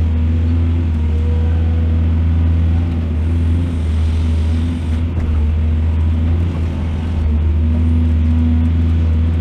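Heavy diesel engine of an excavator running with a steady deep rumble, easing off a little for a few seconds midway.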